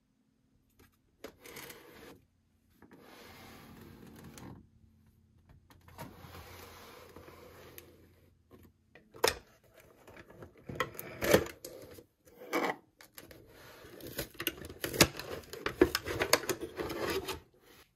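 A cardboard toy box being handled and opened, with several stretches of cardboard rubbing and sliding. From about halfway through comes a run of sharp clicks and crackles as the packaging is worked and the remote control is pulled free of its insert.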